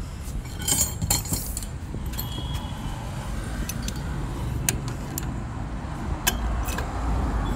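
Metal parts and tools clinking and tapping now and then, several sharp clicks spread over a few seconds, over a steady low rumble.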